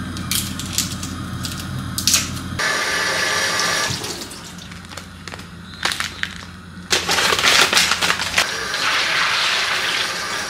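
Kitchen mixer tap running water into a white plastic colander of prawns in a stainless steel sink, a steady splashing hiss that starts about seven seconds in. Before it come a few light clicks and knocks of handling at the sink.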